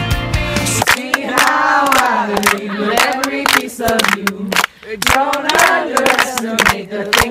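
A group of people singing together, with sharp hand claps through the singing. Within the first second it overlaps the tail of a pop-rock music track, which then cuts off.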